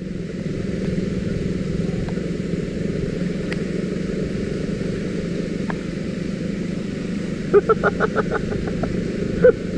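Yamaha scooter engine running steadily under way, mixed with wind and tyre noise on a gravel dirt road, heard from on board the scooter. About three quarters through comes a quick run of short pitched pulses, and another single one near the end.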